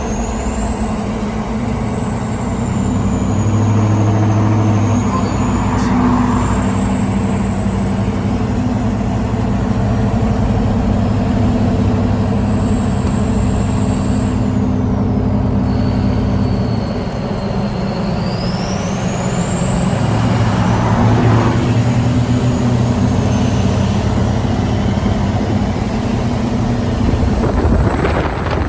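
Ford 6.0 Power Stroke V8 turbodiesel running, its turbocharger whistling in a high tone that rises and falls several times over the engine's steady low drone.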